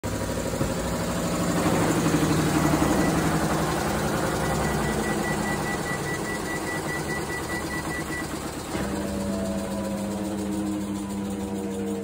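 Hitachi 7 kg top-loading washing machine running loudly, rattling and vibrating hard: one of the occasional bouts in which it suddenly 'goes wild'. A rapid high pulsing tone runs through the middle. About nine seconds in, the clatter settles to a steadier motor hum with a slowly falling whine.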